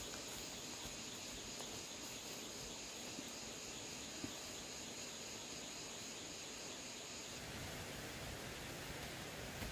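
Faint outdoor ambience with a steady high-pitched insect trill, which stops about seven seconds in.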